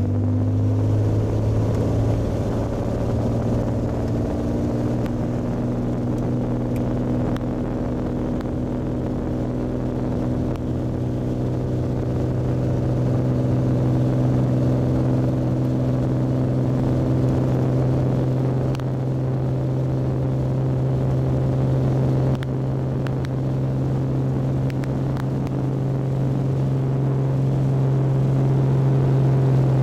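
Beechcraft A36 Bonanza's six-cylinder piston engine and propeller running at takeoff power, a loud steady drone heard from inside the cabin, rising slightly in pitch in the first couple of seconds and then holding steady through the takeoff roll and liftoff.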